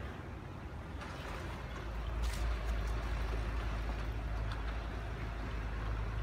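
Wind buffeting the microphone: a steady low rumble with an even hiss of outdoor noise, and a faint click or two.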